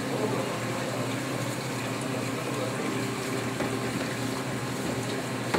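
Tap water running steadily into a stainless-steel sink as a metal pan is rinsed under it by hand.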